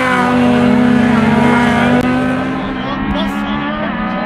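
Lada 21074 engine held at steady high revs while the rear tyres spin in a smoking burnout. About halfway through the sound changes abruptly to a lower, wavering engine note with voices over it.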